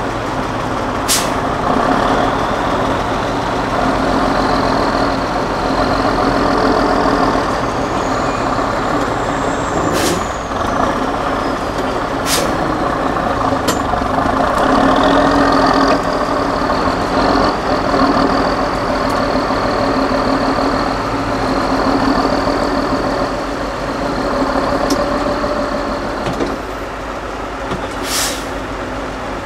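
Tatra 8x8 trial truck's diesel engine running under load as the truck crawls over rough ground, with several short sharp air hisses typical of air brakes releasing. A faint high whine rises and falls once near the middle.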